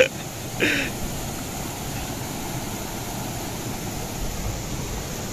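River water rushing over rocky rapids, a steady noise.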